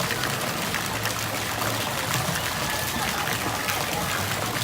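Steady rush of running and splashing water from water-park slides and fountains, with faint distant children's shouts.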